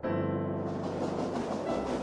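Background music with a sound effect of a train running on the rails, which swells in about half a second in.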